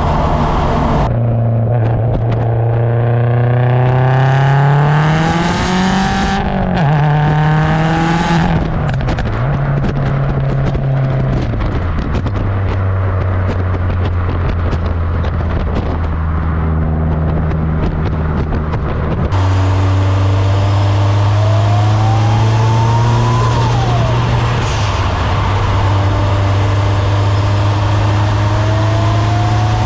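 Turbocharged Subaru STi engine and exhaust under way: the engine note climbs steadily in pitch as the car accelerates, then settles into a steady drone. The sound changes abruptly about a second in and again about two-thirds of the way through. In the later part a thin whistle rises in pitch twice, once with a quick drop, from the turbo spooling.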